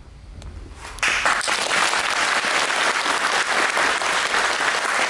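Audience applauding: the clapping starts suddenly about a second in and goes on steadily.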